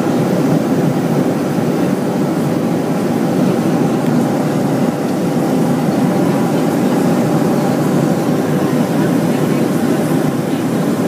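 Steady cabin noise inside a Boeing 737: an even, low-pitched drone of engines and rushing air, with a few faint steady hums above it.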